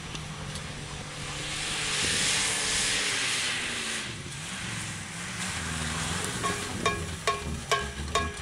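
A 1967 Ford pickup revving hard during a burnout, its pitch sliding down and up while the spinning tyres throw dirt with a loud hiss that swells a couple of seconds in. A run of short, sharp pops follows near the end.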